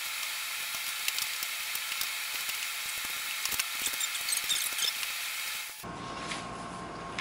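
Fast-forwarded workshop sound while an antique chair back is glued and clamped: a steady high hiss crowded with quick clicks and taps from handling the wood and clamps. It cuts off abruptly near the end to quiet room tone.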